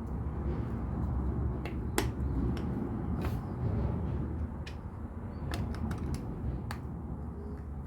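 Plastic LEGO pieces clicking as they are handled and pressed together: scattered sharp clicks, the loudest about two seconds in, over a steady low rumble.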